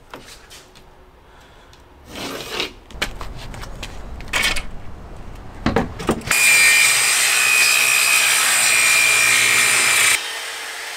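Handheld circular saw cutting a 12 mm plywood sheet: a loud, steady cutting noise for about four seconds that stops suddenly near the end, leaving a quieter steady hum. Before it come a few scattered knocks and rubs of plywood and a metal rule being handled.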